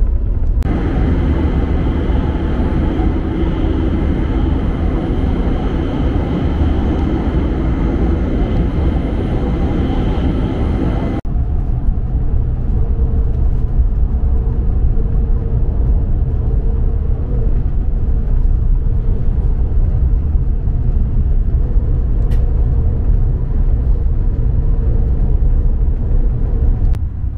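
Steady running noise of an E5-series Shinkansen at speed, heard inside the passenger cabin: a continuous low rumble with a rushing hiss over it. About 11 s in the sound changes abruptly at a cut, and the rumble continues with a slightly different tone.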